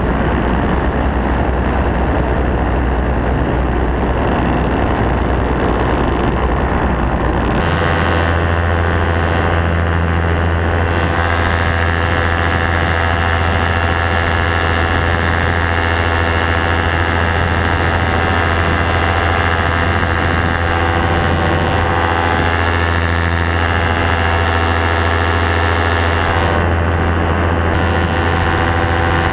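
Paramotor engine and propeller running steadily in flight. The drone steps up in pitch about seven and a half seconds in and holds there.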